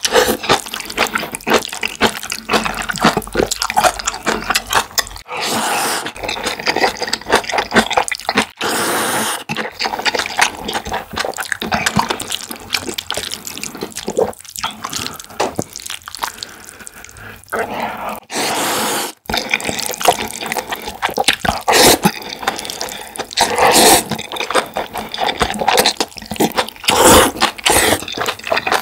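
Close-miked eating of black-bean-sauce (jjajang) ramyeon noodles and rice: rapid wet chewing and mouth clicks, broken by a few longer slurps of about a second each, one about a fifth of the way in, one about a third in and one about two-thirds through.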